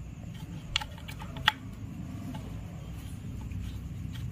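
A few sharp, light clicks of metal engine parts being handled at the camshaft of a diesel cylinder head, the loudest about a second and a half in, over a steady low hum.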